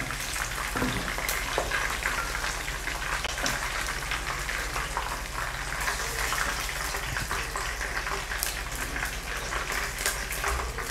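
Chicken pieces frying in hot vegetable oil in a wok: a steady crackling sizzle as the browned pieces finish cooking.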